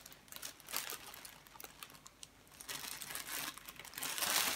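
Clear plastic packaging bags crinkling as they are handled, in scattered crackles that grow louder near the end.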